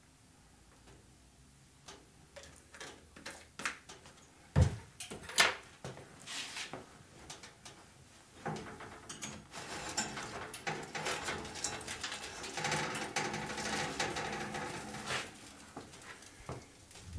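Kitchen handling sounds: scattered clicks and knocks with one sharp knock about four and a half seconds in, then several seconds of denser, continuous handling noise before it quietens near the end.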